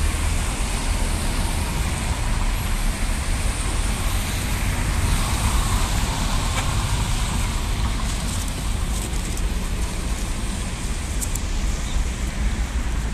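Steady road traffic noise: cars passing close by on a wet road, with tyre hiss and low engine rumble.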